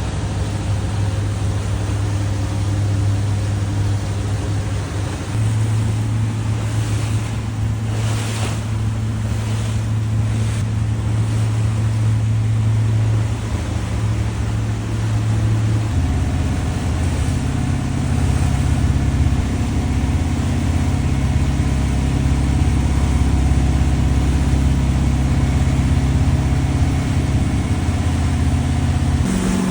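Motorboat engine running steadily underway, its low note shifting to a new pitch several times, with wind and water rushing past.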